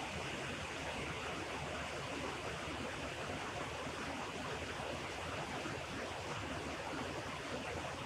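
Steady rushing of river rapids, water running fast through and beside a shelf of ice, without a break.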